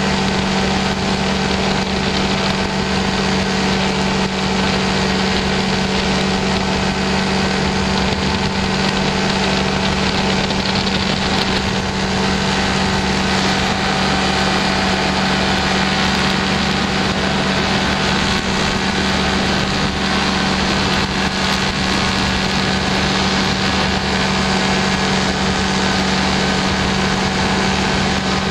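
Small aircraft engine and propeller running at steady power in flight: a constant low drone with an even rushing noise over it, holding the same pitch throughout.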